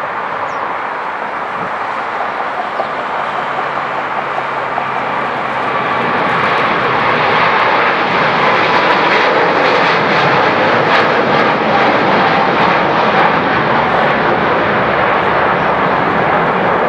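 Boeing 777-300ER's twin GE90-115B turbofans at take-off thrust: a broad jet roar that swells as the airliner lifts off and climbs out, loudest from about halfway through, with a crackling edge.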